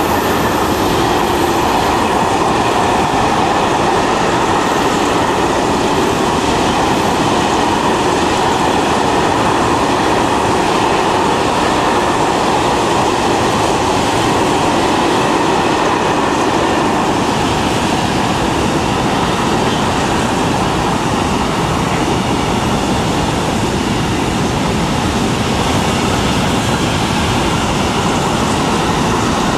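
Freight train of covered hopper wagons rolling past steadily, its wheels running on the rails.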